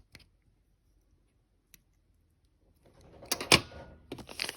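Handling noise from a Zippo lighter: a few faint metal clicks, then from about three seconds in a quick run of clicks and rustling, with one sharp click the loudest.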